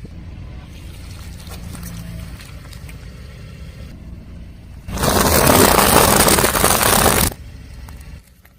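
A car rolling slowly with a low engine rumble, then about five seconds in a loud crushing, crackling noise lasting about two seconds as the tyre runs over an object, before dropping back to the low rumble.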